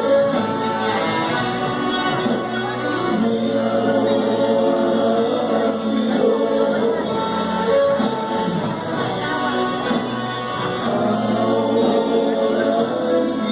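A band playing a song live, with sung vocals over the accompaniment.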